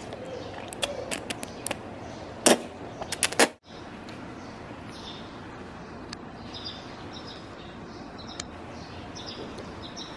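Sharp clicks and knocks from a plastic instant-noodle cup being handled, the two loudest about two and a half and three and a half seconds in. After that only steady background hiss with faint bird chirps.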